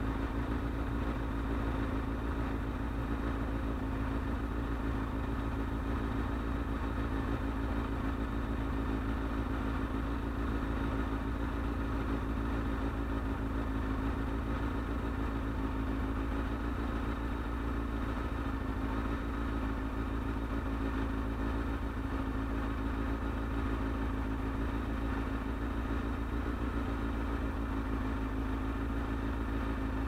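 Sport motorcycle engine idling steadily, with an even, unchanging hum.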